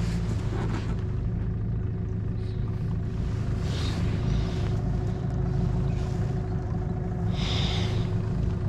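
Small boat's outboard motor running steadily at low speed, moving the boat slowly, with two brief hisses about four and seven and a half seconds in.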